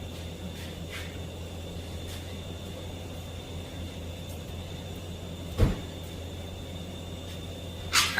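Truck engine idling with a steady low hum. A heavy thump comes a little past halfway, and a sharp metallic clank near the end.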